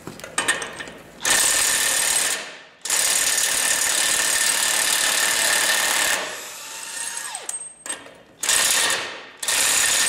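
Cordless impact wrench hammering on a heavy truck's wheel lug nuts in four bursts: a short one, a long one of about three seconds, then two short ones near the end. Each burst cuts out on its own though the trigger is held, a sign of a worn-out wrench.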